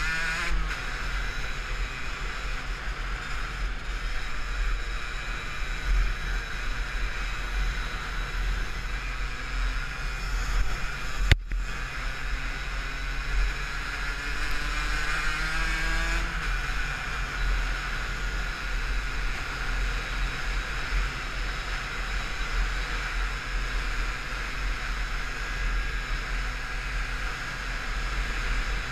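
Derbi Senda 50 SM DRD Racing's two-stroke 50 cc engine running under way, its pitch climbing as it revs and dropping sharply at gear changes, under heavy wind buffeting on the microphone. One sharp click about eleven seconds in.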